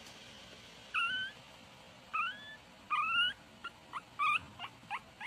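A 20-day-old Shih Tzu puppy whining: three drawn-out rising whines, then a quicker run of short high squeaks near the end.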